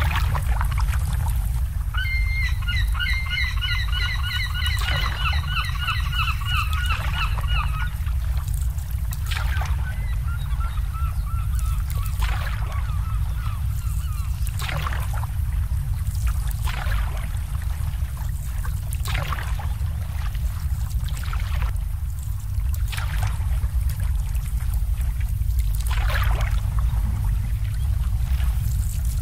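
A waterbird gives a rapid run of honking calls, about three or four a second, for some six seconds, and a fainter run follows a few seconds later. Marina water laps and splashes in irregular small slaps over a steady low rumble.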